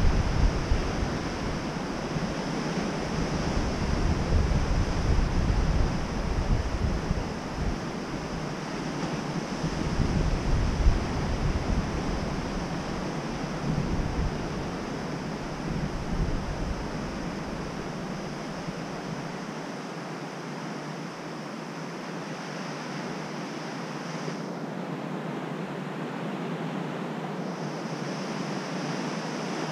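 Surf washing onto a rocky beach, with wind gusting against the microphone; the low gusty rumble dies away about two-thirds of the way through.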